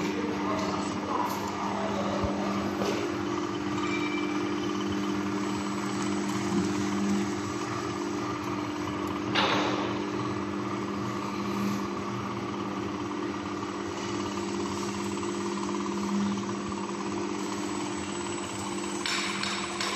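Desktop cast-film line with an SJ35 single-screw extruder running: a steady electric-motor hum with two even tones from its extruder and roller drives. A short hiss rises briefly about halfway through and again near the end.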